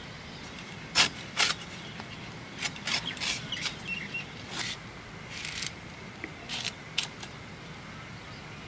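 Young green jackfruit being cut against a boti blade: about a dozen short, crisp slicing strokes at irregular intervals, bunched closer together through the middle.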